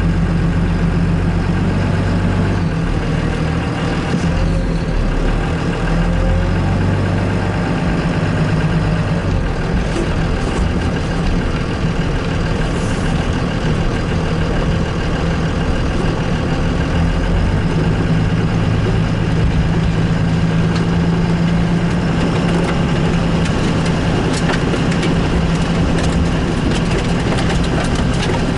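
Truck engine running steadily at low speed, heard from inside the cab, a constant low hum. Light clicks and rattles come in near the end.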